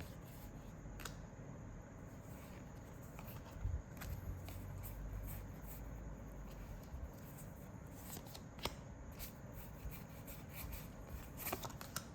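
Trading cards handled and flipped through by hand, one after another: soft scattered clicks and slides of card on card. A low rumble comes in about four seconds in and lasts a few seconds.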